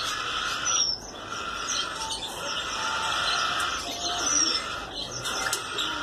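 Many caged birds chirping and chattering together: a steady, dense chorus with repeated short, high chirps.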